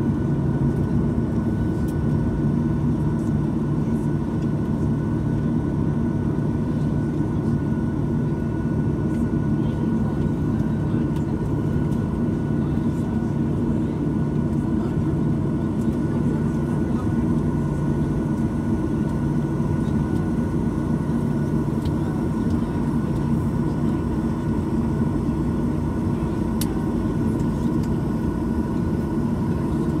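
Steady cabin drone inside a Boeing 737-900ER on the ground: a low hum with a few steady whining tones over it, unchanging throughout.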